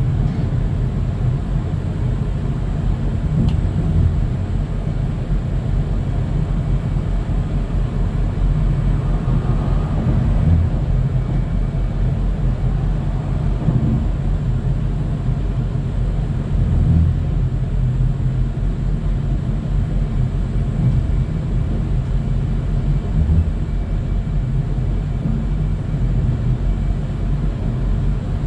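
A vehicle engine running steadily with a low rumble, typical of the tow truck idling while its winch slowly pulls the van up onto the bed.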